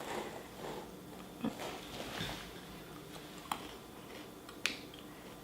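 Quiet handling of an opened bag of chocolate-coated cornflake candy: soft scattered rustles and clicks, with two sharper ticks about three and a half and four and a half seconds in.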